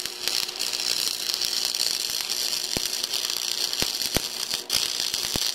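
Stick (arc) welding with a 6011 electrode on a 120-volt AC welder: the arc's steady crackling hiss, with a handful of sharp pops and a faint hum underneath.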